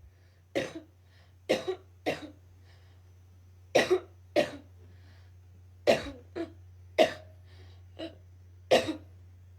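A woman coughing: about ten short single coughs at irregular intervals, over a steady low hum.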